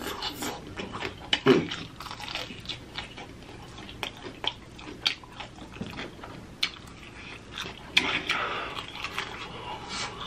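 Close-up chewing and lip-smacking of sauce-coated spicy chicken wings, with many sharp wet mouth clicks. A breathy rush of air comes about eight seconds in.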